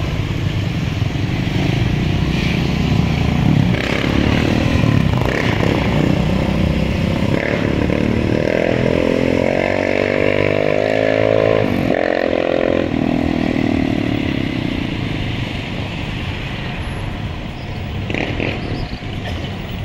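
Street traffic: a low engine drone, then a passing motor vehicle's engine rising and falling in pitch from about 8 to 13 seconds in.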